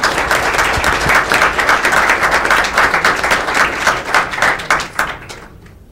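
Audience applauding, a dense run of many hands clapping that dies away near the end.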